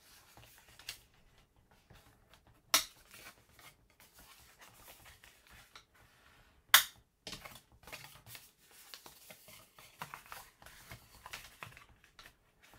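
Cardstock being folded and its folds creased with a bone folder: quiet paper rustling and scraping, with two sharp taps about three and seven seconds in.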